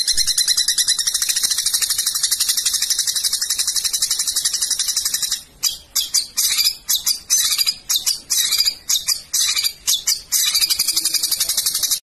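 Long-tailed shrike (cendet) giving its rough 'tembakan' call. It is a fast, unbroken rattle of high notes for about five seconds, then shorter broken bursts, and the fast rattle again near the end.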